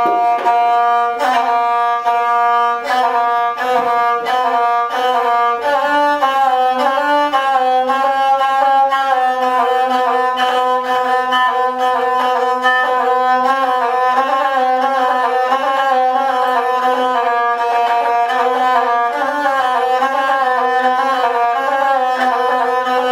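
Gusle, the Balkan single-string bowed folk instrument, played solo. It opens with a few held notes marked by sharp bow strokes, then moves into a quicker, ornamented, wavering melody from about six seconds in. This is the instrumental introduction before the epic singing starts.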